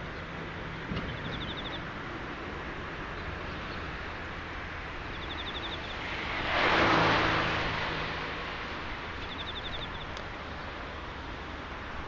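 A car passing by, swelling to its loudest about halfway through and then fading, over a steady outdoor hiss. An insect calls with a short, rapid trill three times, a few seconds apart.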